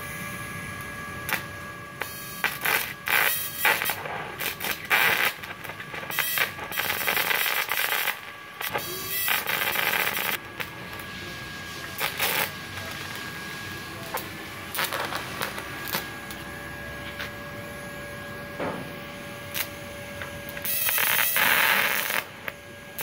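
TIG welding arc from a Multipro TIG 200A SA DC inverter welder at about 55 amps on a steel plate, struck in several separate bursts of hissing crackle. A faint steady whine runs underneath.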